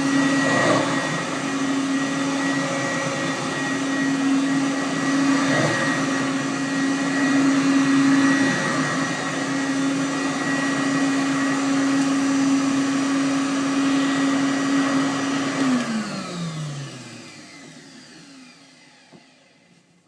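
Hoover Commercial U7071 upright vacuum cleaner running with a steady hum and rush of air. About three-quarters of the way through its motor winds down, the pitch falling, and the sound fades out as it is switched off.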